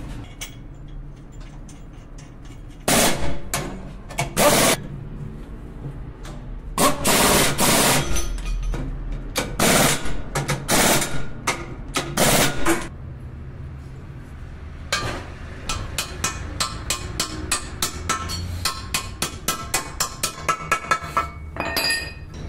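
Pneumatic impact wrench firing in a series of short rattling bursts on the hub of a brake disc clamped in a vise, followed by a long run of quick, even hammer taps on steel, about four a second and closer together near the end.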